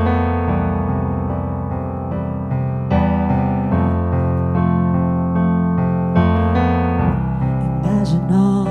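Digital piano playing an introduction of sustained chords that change every couple of seconds. Near the end a woman's voice begins singing over it.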